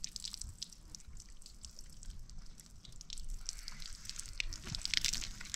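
Water from a garden hose splashing and dripping as it runs over a child's head and hair onto concrete, in irregular patters that grow busier about five seconds in.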